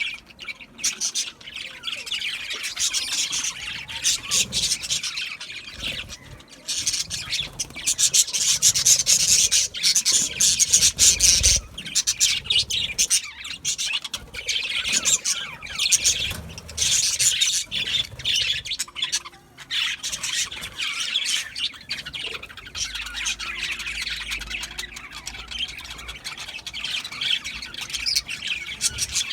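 Several budgerigars chirping and chattering without pause, mixed with squawks; the chatter is densest and loudest about a third of the way in.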